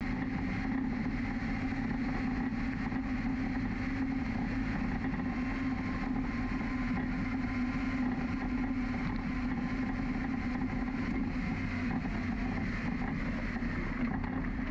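Vehicle driving slowly along a dirt road: a steady engine drone with tyre and road noise, unchanging throughout.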